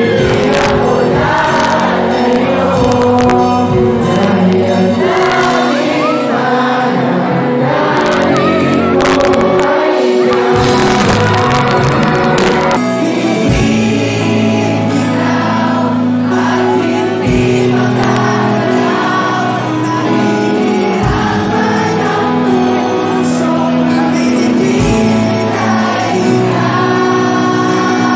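Live band playing on stage with a lead singer, electric guitars and drums, recorded on a phone from the audience, with many voices singing along. A little under halfway through it cuts abruptly to another band's song.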